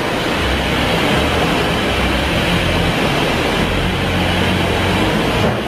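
Doosan HM-1250 horizontal machining center running under power: a steady mechanical hum with a low drone beneath a hiss.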